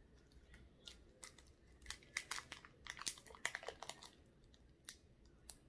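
Quick, irregular clicks and crinkles of a thin plastic candy tray being handled as a gummy is pried out of its mould, busiest in the middle.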